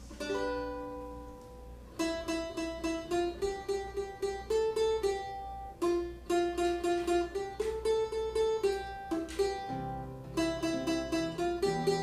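Cavaquinho being played: a single strummed chord rings out, then a quick picked melody of separate plucked notes runs in phrases. Lower notes join in near the end.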